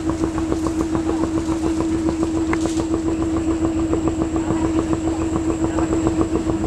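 Klotok riverboat engine running steadily, a constant hum with a fast, even chug.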